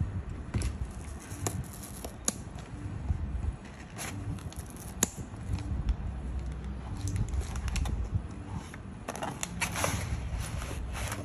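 Cardboard cookie boxes being handled: scattered light taps and scrapes of paperboard, then a stretch of crinkling near the end as an inner tray of foil-wrapped cookie packets is slid out.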